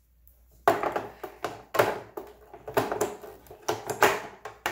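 D-cell alkaline batteries clacking and knocking against each other and into the plastic battery compartment of a paper towel dispenser as they are pushed into place. It is a string of about ten sharp clicks and knocks, starting under a second in.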